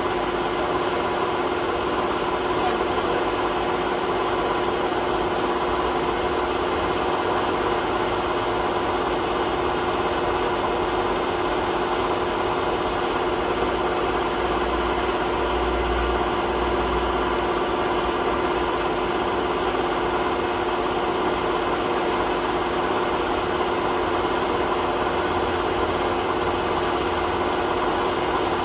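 Hotpoint WMA32 washing machine spinning at a steady speed on worn drum bearings: a constant motor whine over a rumble from the drum. The low rumble swells twice, about halfway through and again near the end.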